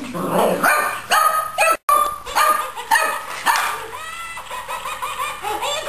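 Boxer puppy barking and yipping in quick, repeated high barks at a TMX Elmo toy, mixed with the toy's high electronic voice.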